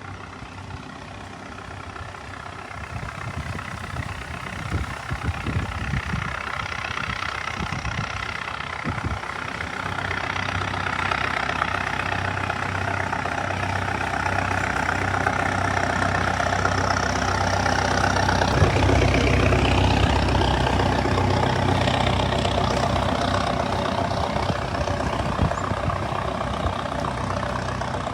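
A heavy engine runs steadily, its level building gradually to a peak about two-thirds of the way through and then easing a little, with a few low thuds early on.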